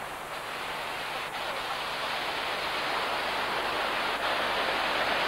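Ocean surf breaking and washing onto a sandy beach: a steady rushing noise, slightly louder near the end.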